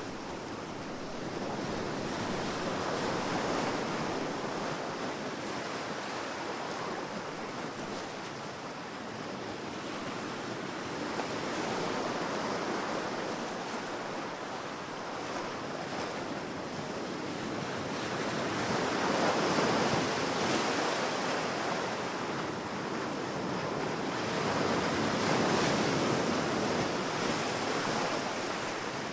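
Ocean waves breaking and washing on a beach in slow swells, each rising and falling over several seconds, with some wind noise.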